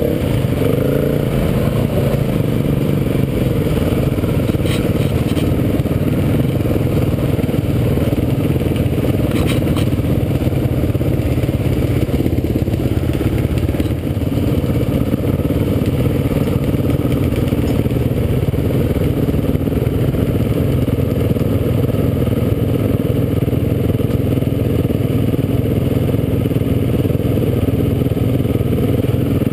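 KTM 350 EXC-F dirt bike's single-cylinder four-stroke engine running steadily under throttle, with a few brief knocks from the bike over rough ground.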